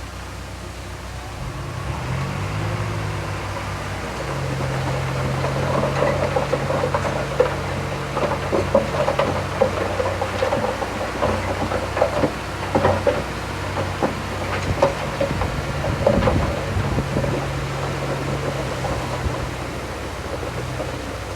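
A heavy diesel earthmoving machine's engine running and picking up revs about two seconds in, with irregular clanks and rattles through the middle.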